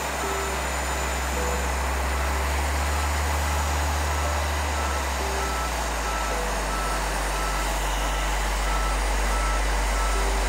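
Towbarless aircraft tug moving an airliner: its warning beeper sounds in short, evenly spaced beeps over the steady low drone of its engine.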